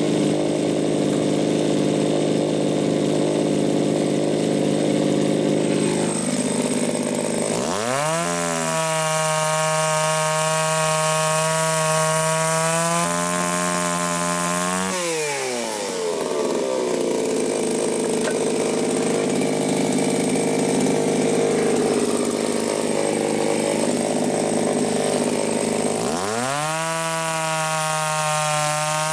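Chainsaw cutting through thick wooden scaffold boards. Under load it runs with a rough, noisy sound of chain chewing wood. About eight seconds in, and again near the end, it revs up to a high steady pitch as it runs free of the wood, and it eases back down in between.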